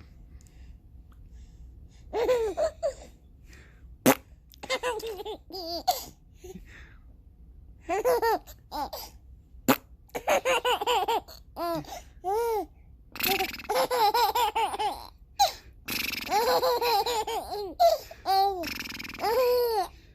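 A young child laughing hard in repeated high-pitched bursts, each a run of short rising-and-falling laughs with quiet breaths between. Two sharp clicks sound about four and ten seconds in.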